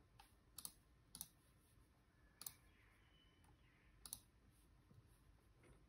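A few faint, separate clicks from the computer as it is operated, about four in six seconds, against near silence.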